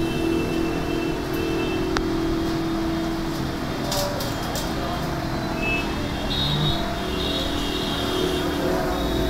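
Steady mechanical hum and rumble, with a few light clicks.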